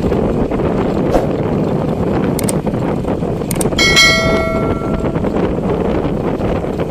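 Steady rushing wind and road noise from riding along a paved road, with a brief ringing tone about four seconds in.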